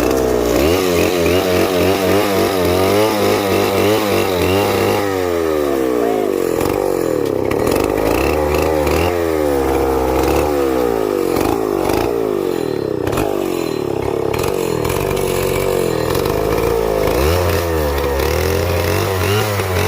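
Chainsaw engine running hard, its pitch rising and falling over and over as the throttle and load change.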